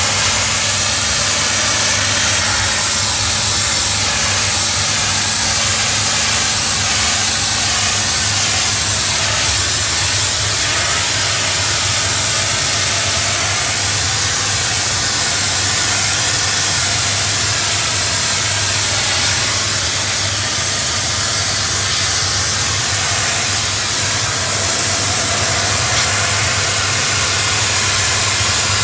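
Doff superheated steam cleaner's lance jetting steam and near-boiling water onto stone patio slabs: a loud, steady hiss with a low, steady hum underneath.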